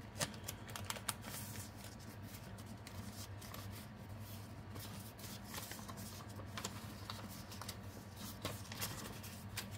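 Paper banknotes rustling and flicking softly as a stack of bills is counted by hand, over a faint steady low hum.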